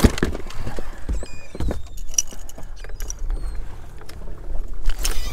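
Wind rumbling on the microphone and water slapping a boat hull, with a sharp knock right at the start. Short high chirping bird calls come about a second in and again near the end.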